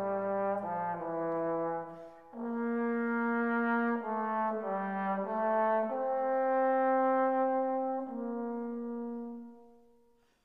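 Background music: a slow melody of long held notes, fading out near the end.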